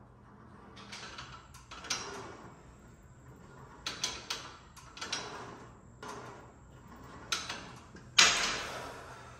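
Gym exercise equipment clanking: a string of irregular knocks and scrapes, the loudest just before the end with a ringing tail.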